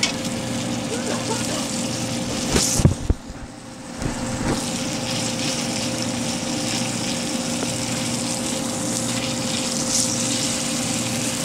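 Pork chops sizzling in hot oil in a stainless steel frying pan, over a steady low hum. A sharp clatter comes about two and a half seconds in, and the sizzle dips briefly just after it.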